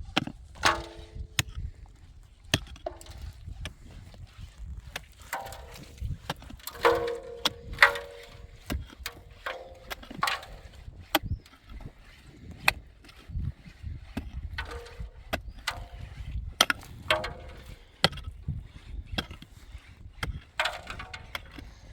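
Irregular knocks and clicks, like objects being handled, with short pitched sounds in between, over a steady low rumble.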